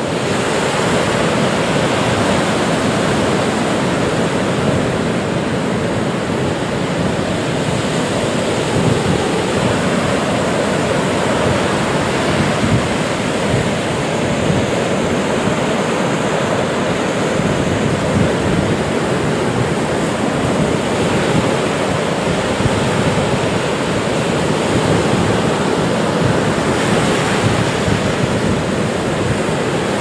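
Ocean surf: waves breaking and washing in a steady, continuous rush.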